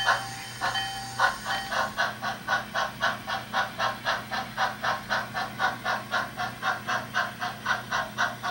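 Model steam locomotive's sound unit chuffing, the beat quickening and then settling at about four chuffs a second.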